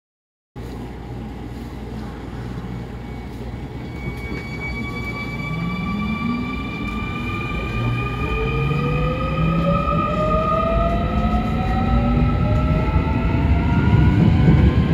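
Electric subway train pulling away from a station and accelerating, its traction motors and inverters whining in several tones that rise steadily in pitch over a low running rumble, growing louder. The sound cuts in suddenly about half a second in.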